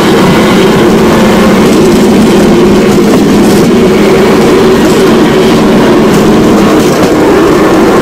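A motorrodillo, a motorcycle-powered rail cart on ball-bearing wheels, running along steel railway track. Its motorcycle engine drones steadily under the rolling noise of the wheels on the rails.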